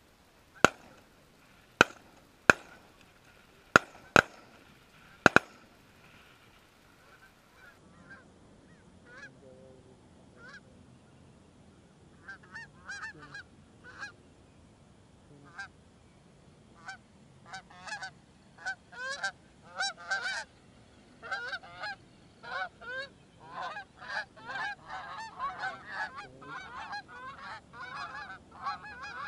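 A volley of six shotgun shots in about five seconds. After them, Canada geese honk, at first a few scattered calls, building into a dense, continuous chorus as a flock approaches.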